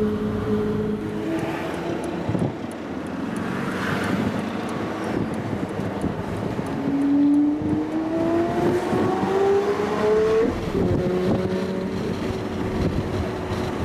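Lamborghini Murcielago LP640's V12 with an IPE exhaust, heard from a following car. It runs steadily at first, then accelerates, its pitch rising for about three seconds before it drops at a gear change and starts climbing again.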